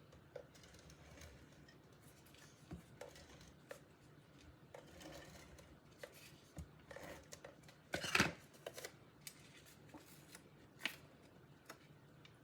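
Paper card pieces and craft tools handled on a work table: scattered light taps and soft rustles, with one louder rustle about eight seconds in.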